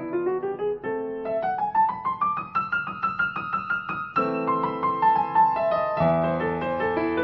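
Background piano music: rapid runs of notes over held chords, a fast rising run in the middle, then falling figures.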